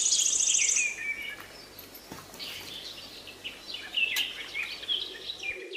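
Small birds chirping and twittering: a rapid high trill in the first second, then scattered short chirps. A single sharp click about four seconds in.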